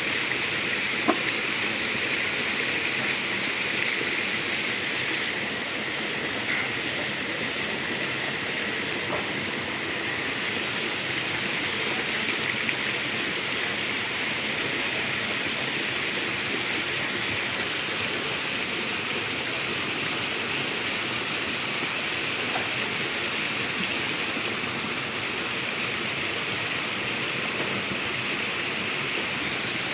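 Steady rush of running water from a mountain spring or stream, with a few short knocks, the sharpest about a second in.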